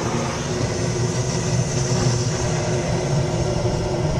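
Handheld butane blowtorch burning with a steady hiss, its flame held on lump charcoal to light it.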